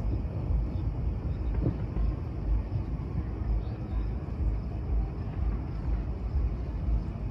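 Fireworks display heard from the crowd: a low, uneven rumble of distant bursts, with one faint crack about a second and a half in.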